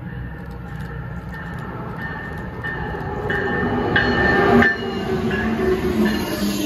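Amtrak ACS-64 electric locomotive and its passenger cars approaching and passing close by. The rumble builds to its loudest as the locomotive goes past about four seconds in, with a short high ding repeating about every two-thirds of a second.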